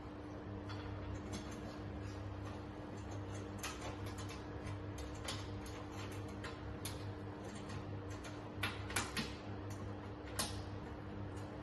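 Scattered light clicks and taps of hands working at the monitor mount and fittings on top of a hydrofacial machine, with a few sharper knocks about nine seconds in and one more near the end, over a steady low hum.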